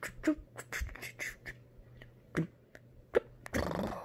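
Voice and mouth sounds played backwards: a run of sharp clicks and clipped voice-like blips, ending in a breathy rushing swell about three and a half seconds in.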